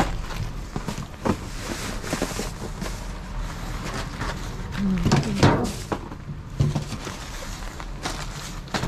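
Plastic trash bags rustling and cardboard boxes and items knocking against each other and the metal dumpster as they are poked and pulled with a grabber pole. A brief low hum-like sound comes about five seconds in.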